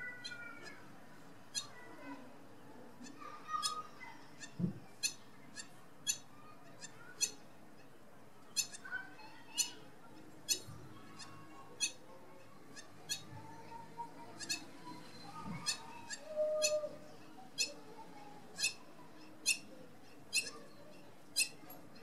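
Hamerkop giving short, sharp, high-pitched calls, about one a second throughout, with a few fainter gliding calls lower down and a couple of dull low thumps.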